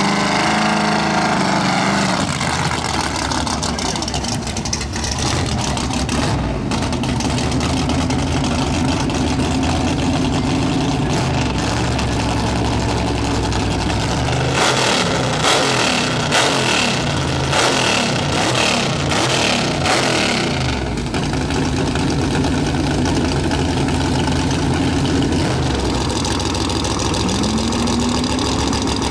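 Drag racing car engines idling and revving. About halfway through there are several seconds of rapid sharp bangs, and near the end an engine revs up.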